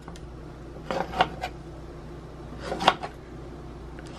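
Kitchen knife cutting strips in yeast dough on a parchment-lined metal baking sheet, the blade clicking against the pan: three quick clicks about a second in and another near three seconds.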